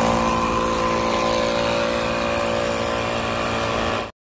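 Portable air compressor running steadily with a constant motor hum, pumping air into a flat run-flat tire. The sound cuts off abruptly near the end.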